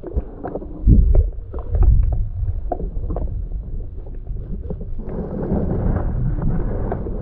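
Water slapping and lapping against the hull of a small fishing boat, with a steady low rumble and scattered irregular knocks.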